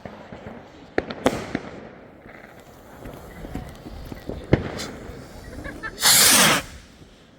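New Year's Eve fireworks going off: a few sharp bangs and scattered cracks, then a loud half-second rushing burst about six seconds in.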